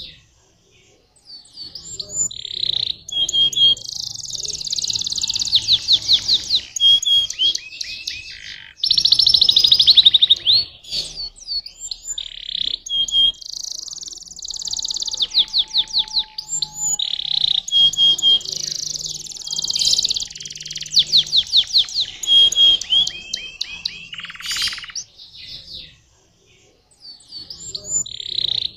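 Domestic canary singing long phrases of fast rolling trills and clear whistled notes, with short pauses between phrases.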